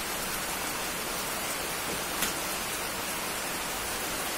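Steady rain falling, an even hiss with one sharper drop tick about two seconds in.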